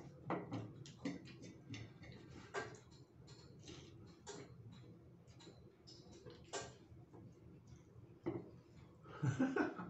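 Two people eating: irregular small clicks and taps of a fork and spoon against ceramic plates, with chewing and mouth noises, and a louder cluster of clicks and mouth sounds near the end.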